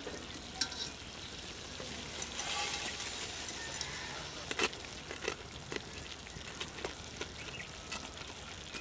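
Large aluminium pot of vegetables at a boil while blocks of instant noodles are dropped in. A soft rustling as more noodles slide off a steel plate comes about two to three seconds in, and there are a few sharp clinks of metal against the pot.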